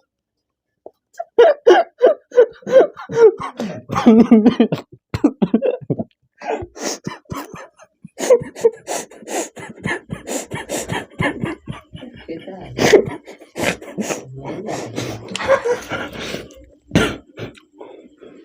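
Fast eating of watermelon, with wet bites, chewing and slurping in many sharp smacks, and bouts of coughing in the first few seconds.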